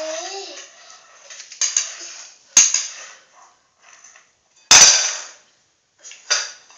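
Toddler banging and clattering hard objects: a sharp crack about two and a half seconds in, then a louder bang near five seconds, with lighter rattling between.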